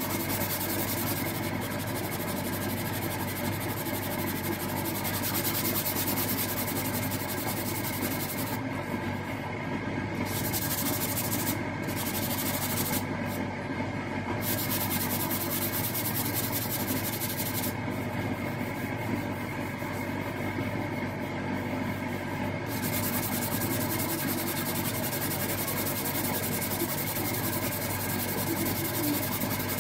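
Power sander running steadily and sanding the car's bodywork: a constant motor hum under a scratchy hiss. The high hiss drops away briefly a few times in the middle while the motor hum carries on.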